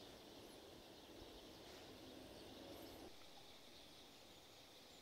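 Near silence: faint outdoor ambience.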